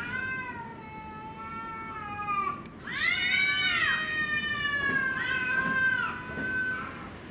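Stray cats yowling at each other in a fight standoff: long, drawn-out, wavering yowls, one rising and falling sharply about three seconds in.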